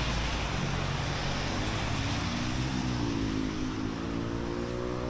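Engine running steadily under a rushing noise; about three seconds in, an engine's pitch starts rising, as if it is revving up or pulling away.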